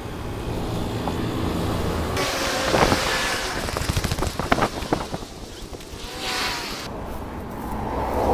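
Road traffic running by on a freeway on-ramp, with wind on a body-worn camera's microphone. Irregular knocks and rustling come around the middle.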